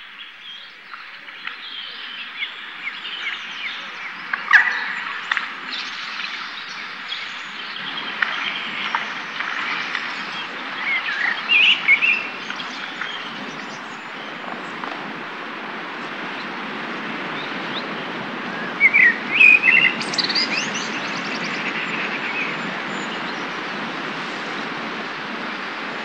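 Wild birds chirping and singing over a steady background hiss, with a few louder bursts of song about eleven seconds in and again about nineteen seconds in.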